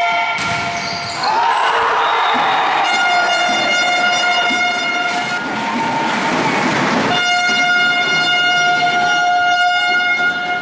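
Handheld horns blown by spectators in long, steady blasts one after another, over crowd noise.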